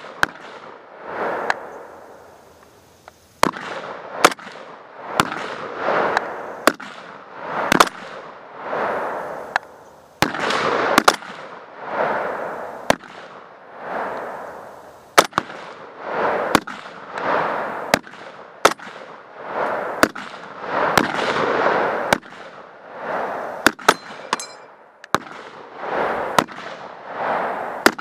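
M1 Garand .30-06 rifles firing semi-automatically at their own pace from a line of shooters. The shots come at irregular intervals, about one a second, each followed by a long echo.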